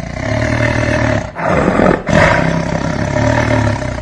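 Leopard growling and roaring in a continuous run, with two brief breaks, about one and a third and two seconds in.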